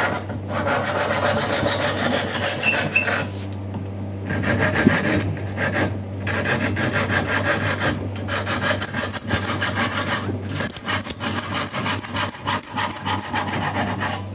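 Hand saw cutting through a board held in a wooden vise: steady back-and-forth sawing strokes, broken by a few short pauses.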